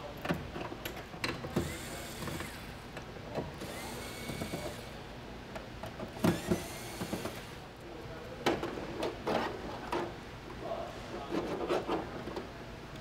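Cordless electric screwdriver whirring in about three short spurts, backing screws out of a flat-screen TV's back cover, with clicks and knocks of tools and small parts in between.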